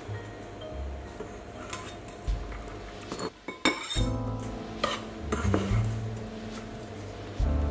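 Kitchen knife scraping and tapping diced onion across a wooden chopping board toward a ceramic bowl, with a few sharp clicks. Jazz music plays underneath, coming up about halfway.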